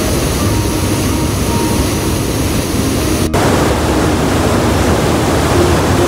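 Rapids and waterfall in high flow, swollen by rain: a loud, steady rush of white water, broken off abruptly about three seconds in and then carrying on.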